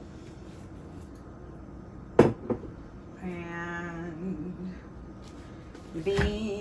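A sharp knock about two seconds in, with a smaller one just after, then a person humming one held note for about a second and a half.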